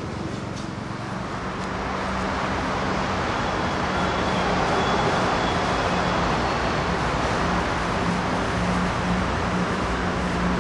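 Steady background noise of road traffic that swells about two seconds in and then holds, with a low steady hum running underneath.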